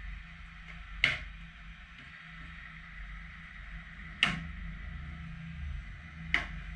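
Three sharp knocks, spaced two to three seconds apart, over a low steady hum, as a hard plastic roof vortex generator is pressed and worked into place on a car roof.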